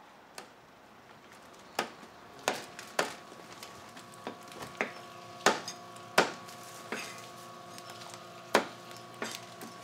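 Kitchen work: irregular sharp knocks and clatter, about a dozen in all, the loudest near the middle.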